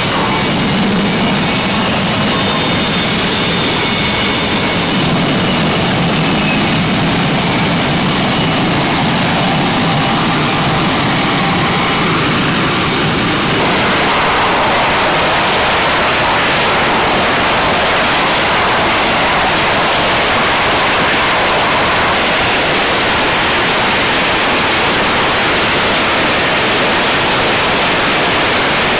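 F/A-18 jet engines running on a carrier flight deck: loud, steady jet noise with a high whine over it. About halfway through, the whine drops out and the noise becomes an even, harsher hiss.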